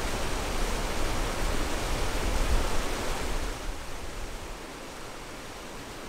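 Rushing water of a small mountain river cascading over boulders, a steady hiss. About three and a half seconds in it drops to a quieter, duller rush.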